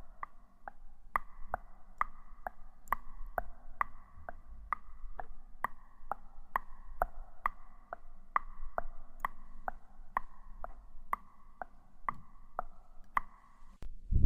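Steady clock-like ticking, about two ticks a second, over a faint steady hum; the ticking stops shortly before the end.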